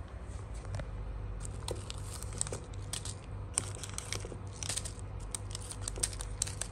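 Foil and paper sachets of instant coffee and sugar crinkling in the hand as they are pulled from a glass holder and handled, in quick irregular crackles starting about a second and a half in. A low steady hum runs underneath.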